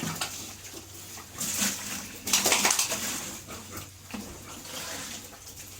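Water splashing in bursts, loudest from about two seconds in, with short animal noises.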